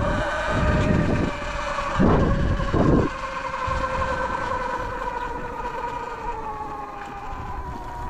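Surron Light Bee X electric dirt bike's motor and drive whining steadily while riding, its pitch easing slowly lower in the second half. Gusts of wind buffet the microphone in the first three seconds.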